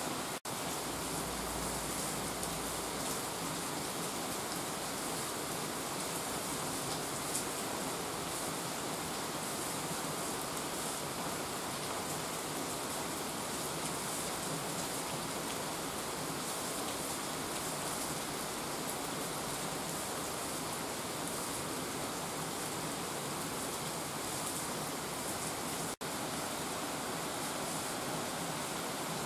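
Heavy rain pouring onto wet asphalt and puddles, with rainwater running over the ground: a steady, even hiss. It is broken by two momentary dropouts, about half a second in and near the end.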